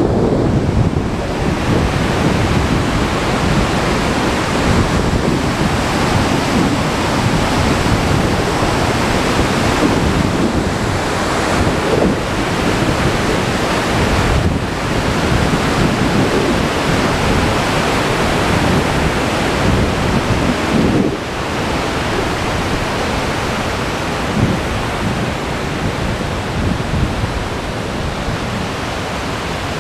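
Fast mountain torrent rushing over rocks, a continuous wash of white water, with wind buffeting the microphone in gusts.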